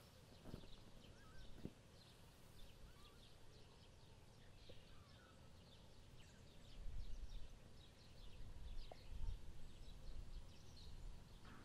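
Faint, short, high animal chirps and squeaks scattered over quiet room noise, with soft low bumps about 7 and 9 seconds in.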